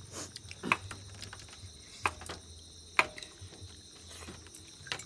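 Kitchen utensils knocking during food preparation: a handful of sharp, irregular knocks and clatters a second or so apart, over a faint steady low hum.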